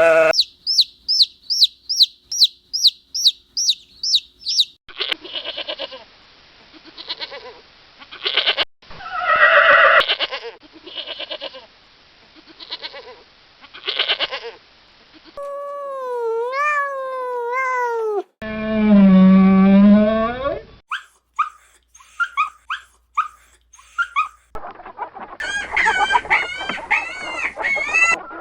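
A string of different farm animal and bird calls in short clips, one after another. It opens with a fast run of high chirps, then rough repeated calls, then calls that slide down and up in pitch, a long low call, and high chirping calls at the end.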